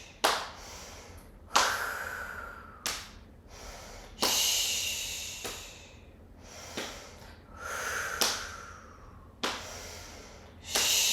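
A person breathing out forcefully through the mouth over and over, alternating a hollow "whoo" with a hissing "shh", one breath every second or so; many breaths open with a short sharp smack.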